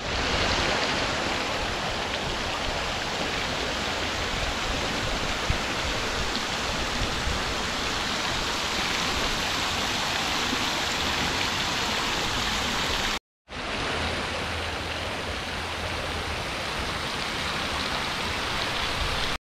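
Steady, even rushing noise with no voices or tones, like running water or hiss, cut off by a brief dropout to silence about thirteen seconds in.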